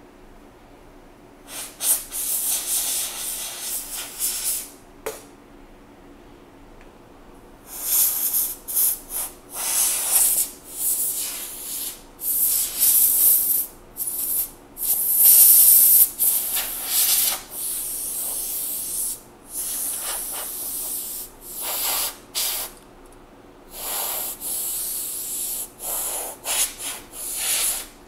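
Compressed-air duster spraying in repeated hissing blasts to blow dust out of a MacBook Pro's vents: one blast of about three seconds, a short puff, then a long run of blasts with brief pauses.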